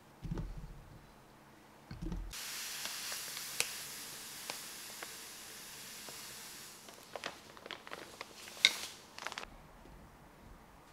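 Sugar poured into a large glass jar of green plums, a steady hiss lasting about four seconds, layered over the fruit for plum syrup. Two soft thuds come before it, and a few sharp clicks and taps of fruit and glass come after.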